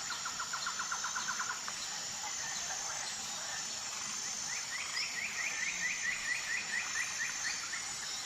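Forest ambience: a steady high insect-like drone with birdsong. A fast low trill of repeated notes comes in the first second or two, and a higher trill of quick repeated notes starts about halfway through and runs almost to the end.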